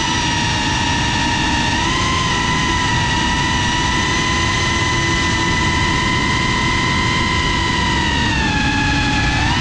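FPV quadcopter's motors and propellers whining at a steady high pitch in fast flight, over a rush of wind noise. The pitch lifts slightly about two seconds in and eases down near the end.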